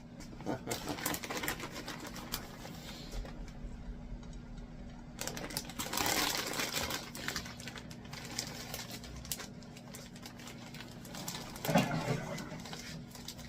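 Scattered light clicks and clatter of kitchen utensils against plates and dishes while food is served, over a steady low hum.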